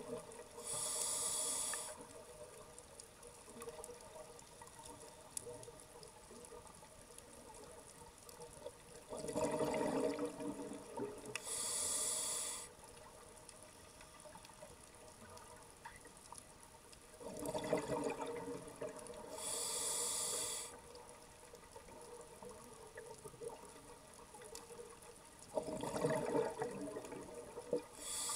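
Slow scuba breathing through a demand regulator, heard underwater. A burble of exhaled bubbles is followed by a short hissing inhale, the pair repeating about every eight seconds, with faint water noise between breaths.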